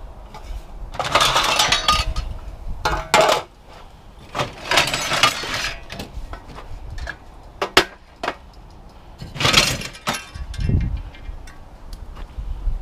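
Pieces of thick extruded aluminum scrap clanking and scraping against one another as they are handled and loaded, in about five separate bursts with a few sharp knocks. A low wind rumble on the microphone comes in near the end.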